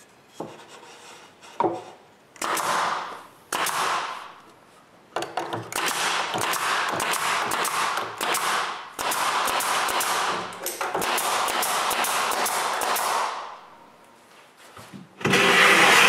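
Pneumatic brad nailer driving brads to fasten glued wood strips to a plywood panel. Many sharp shots sound over stretches of air hiss, with the longest run lasting about eight seconds.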